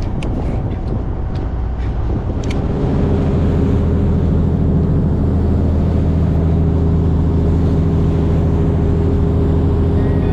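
Fishing boat's engine running with a steady drone that grows louder and steadier about two and a half seconds in. A few sharp clicks come in the first two seconds.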